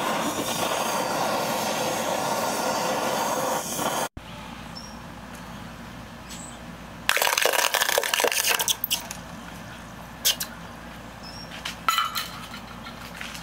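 Handheld gas torch flame hissing steadily as it heats lead in a small steel cup. After a cut, molten lead is poured into a bucket of water and sizzles and crackles for about two seconds, followed by a few short sharp cracks.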